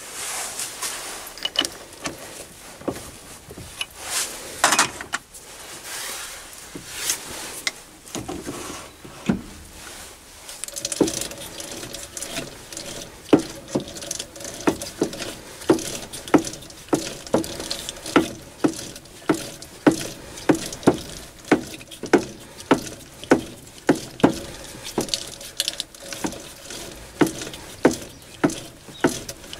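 A small metal lathe tapping a thread, with the tap held in a four-jaw chuck on the tailstock. Irregular metal clatter and handling come first, then from about a third of the way in a steady run of sharp clicks, about three every two seconds, each with a short ring.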